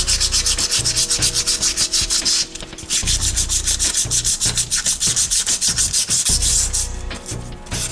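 Aluminum jet-boat wear ring being scuffed by hand with 120-grit sandpaper, quick back-and-forth rubbing strokes. It breaks off briefly about two and a half seconds in and again near the end. This is the surface-prep stage, roughing the metal so epoxy will adhere.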